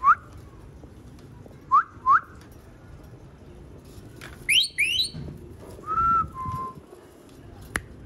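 Green parrot whistling in short rising whistles: one at the start, a pair about two seconds in, and a quick run of higher sweeping whistles around the middle. These are followed by two held notes, the second lower, and a light click near the end.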